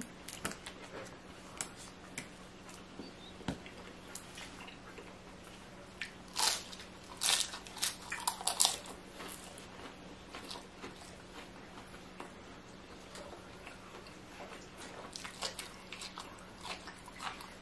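Close-up eating sounds: bites and chewing of a crunchy food, most likely flaky spanakopita pastry, with a louder run of crunchy bites about six to nine seconds in. A faint steady hum lies underneath.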